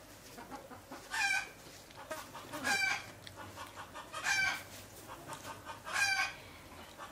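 A chicken calling in a repeated series: soft short clucks between four loud calls, about one loud call every one and a half seconds.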